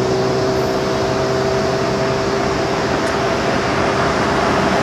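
Norfolk Southern freight train approaching behind GE ES44AC diesel locomotives: a steady engine drone over an even wash of noise.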